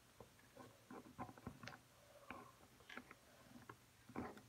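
Faint, scattered clicks and rustles of a plastic action figure and its coat being handled and fitted, with a louder rustle about four seconds in.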